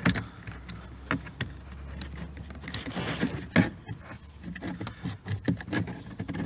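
Plastic parts of a Renault Clio Mk2 interior door handle clicking and knocking as they are worked by hand to pop a linkage piece out of the door, with one louder sharp click a little over halfway through.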